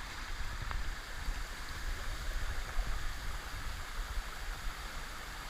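Steady flowing water of a hillside stream, an even rushing hiss with a low rumble underneath.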